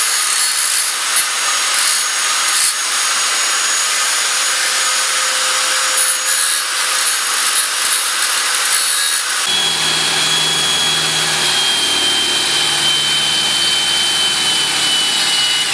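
Angle grinder running against metal: a steady, harsh grinding hiss with a thin high whine. About nine and a half seconds in, the sound changes sharply, a lower hum joins and the whine settles lower, sinking slowly.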